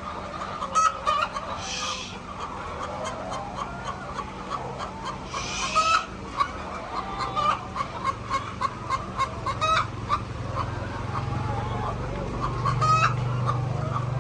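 A flock of chickens clucking continuously, with several sharper, louder squawks. A low hum rises under them in the last few seconds.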